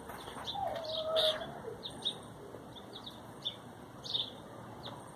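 Small birds chirping: short high chirps repeating every half second or so, with one lower drawn-out wavering call about a second in.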